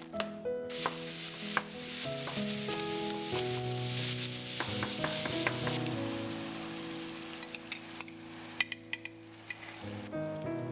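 Food sizzling in a frying pan while being stirred, over soft background music. The sizzle comes in about half a second in and fades away a little past the middle, followed by a few light clicks near the end.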